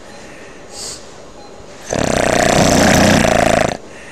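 A person snoring: one loud rattling snore of nearly two seconds, starting about two seconds in, from the uvula fluttering in the airway. A short faint breath sound comes before it.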